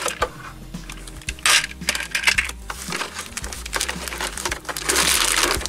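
Cardboard packaging and plastic toy race-track pieces clattering and rustling as they are handled and pulled out of a box, with irregular clicks and a longer rustle near the end.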